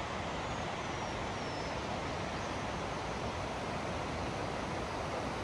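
Steady, even rushing of a mountain stream. A bird gives a few faint high whistles in the first two seconds.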